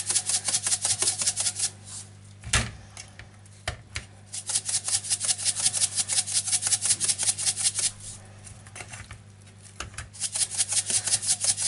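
Salt being shaken from a handheld salt container over raw salmon pieces in a pot: quick rattling strokes, about five or six a second, in three runs separated by short pauses. A couple of soft knocks fall in the first pause.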